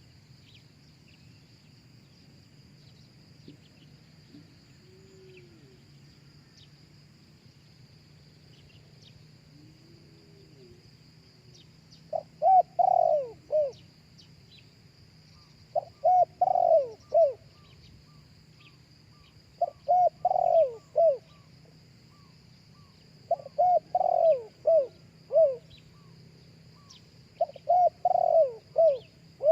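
Spotted dove cooing: five phrases of a few short, low coo notes, starting about twelve seconds in and repeated every three to four seconds. A steady high insect drone runs underneath.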